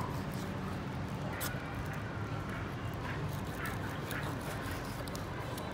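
Kitchen knife slicing sturgeon pieces on a wooden chopping block, with a few sharp taps of the blade on the wood. A steady low hum and short high chirps run underneath.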